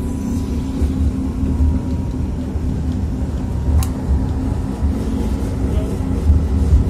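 Tatra T3SUCS tram running, heard from inside the passenger car: a steady low rumble of the motors and wheels on the rails with a constant low hum. A single sharp click comes about four seconds in.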